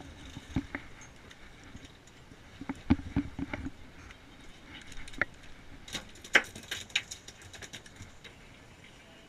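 Scattered sharp clicks and knocks of a spinning rod and reel being handled while reeling in a hooked fish. There is a cluster of clicks about three seconds in and another, busier one around six to seven seconds.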